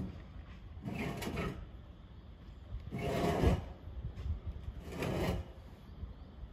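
Three rasping scrapes on wood, about two seconds apart, over a steady low hum.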